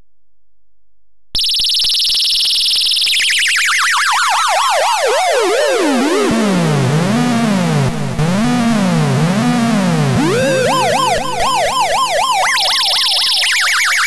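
Circuit-bent toy driving-wheel dub siren played through an echo effect. It starts about a second in with a steady high tone, then a warbling siren sweeps down to a low wobble, climbs back up, and returns to the high tone near the end. Echo repeats of each sweep overlap.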